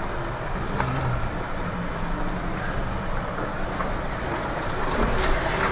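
Jeep Wrangler driving slowly over a rough, rocky dirt trail, heard from inside the cabin: a steady low rumble of engine and tyres, with a sharp knock from the body jolting over bumps under a second in and again near the end.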